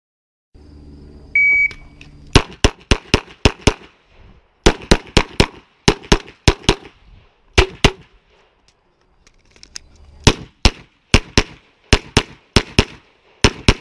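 A shot timer gives one high beep, the start signal. About a second later a Glock 34 9mm pistol fires a long string of rapid shots in quick groups of two to several, with short pauses between groups and a longer pause a little past the middle.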